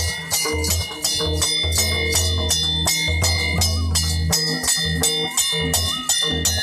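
Live folk drumming: a large two-headed barrel drum beaten in a steady dance rhythm, with sharp metallic chiming strokes about four to five times a second over it.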